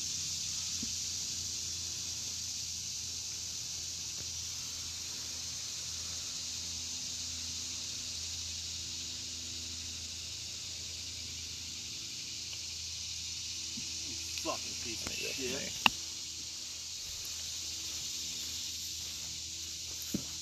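A steady high insect chorus, with a sharp click of a putter striking a golf ball about three-quarters of the way through, just after some quiet voices, and a lighter putter click near the end.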